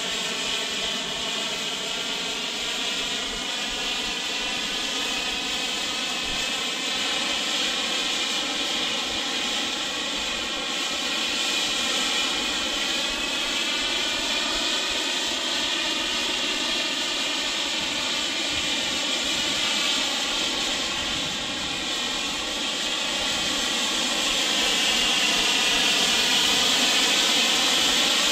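Small turbine jet engine of a radio-controlled F-35B scale model in flight, a steady jet hiss and whine with a slow, wavering, swishing quality as it moves about the sky. It grows louder a few seconds from the end as the model comes closer.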